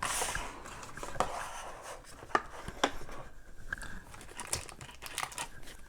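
Plastic packaging on a box of trading cards crinkling and tearing as it is opened, rustling most in the first second, then a scattering of light clicks and taps as it is handled.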